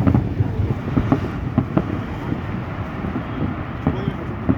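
Aerial fireworks going off: a string of sharp bangs, several a second apart, over a steady low rumble.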